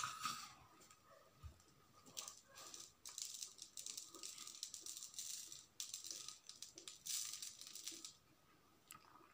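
Crushed eggshell crackling and rustling between fingertips as it is crumbled and sprinkled onto a glued bottle, in several faint bursts.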